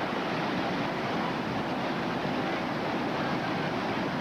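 Whitewater river rapid rushing, a steady, even noise of churning water.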